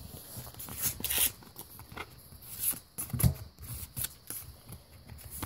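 A stack of Pokémon trading cards being handled and shifted in the hand, the cards sliding and rustling against each other in short scrapes. There is a soft bump about three seconds in.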